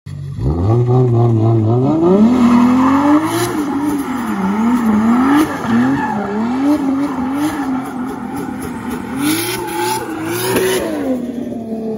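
Big-turbo 2JZ inline-six in a Lexus GS300 revving hard through a burnout and donuts, the rear tyres squealing. The revs climb about two seconds in, then rise and fall over and over, and drop away near the end.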